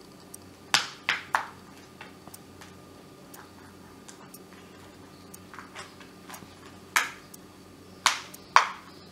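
Sharp plastic clicks and snaps as the hand blender's plastic handle housing is worked apart by hand: three close together about a second in, one near seven seconds, and two near the end.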